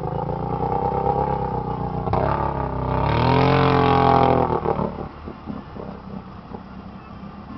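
Kawasaki Brute Force ATV's V-twin engine revving against a load while the quad sits stuck nose-down in deep mud. It holds steady revs for about two seconds, climbs to its loudest a little after three seconds in, then drops back to a lower, uneven running near the end.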